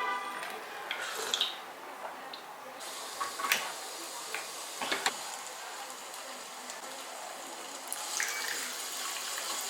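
Kitchen tap running into a sink, turning on about three seconds in, with a few knocks and clinks of dishes.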